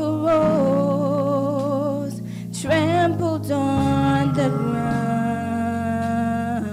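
A woman singing a slow gospel song solo into a microphone, holding long notes with vibrato over a steady sustained instrumental accompaniment.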